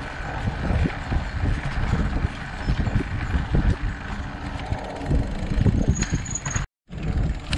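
Fat-tire mountain bike riding down a dirt singletrack: knobby tyres rolling over the trail, the bike knocking and rattling over bumps, and a low rumble of wind and jolts on the handlebar camera's microphone. The sound cuts out for a moment near the end.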